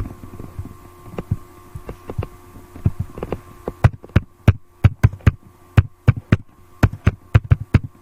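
Rapid, irregular knocks and thumps, several a second, louder and closer together from about four seconds in, over a steady low electrical hum.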